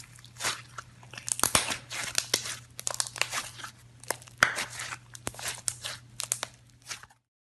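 Pink grainy-textured slime being squeezed, folded and pulled apart by hand, giving a dense run of crackling and tearing pops. The sound cuts off suddenly near the end.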